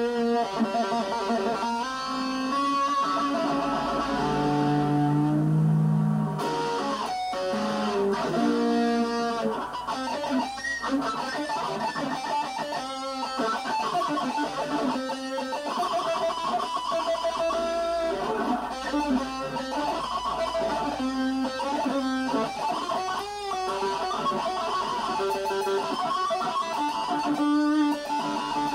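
Electric guitar being played: a melodic line of single notes, some held with a wavering vibrato.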